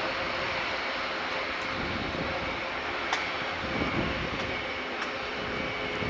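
Four-engined Airbus A400M Atlas turboprops running on the ground: a steady drone with a steady high whine over it.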